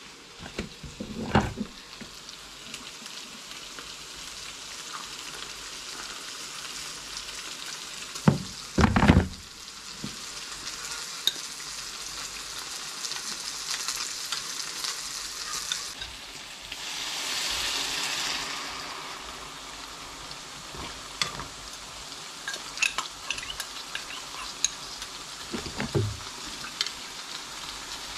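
Sliced potatoes and chicken sizzling steadily in frying pans, with a louder swell of sizzling partway through. A few loud knocks and light clinks of a spoon against a small glass and the pans break in.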